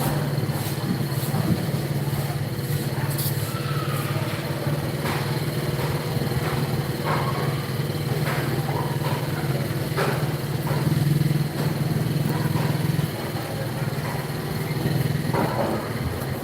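A motor running with a steady low hum, with a few scattered knocks and faint voices behind it.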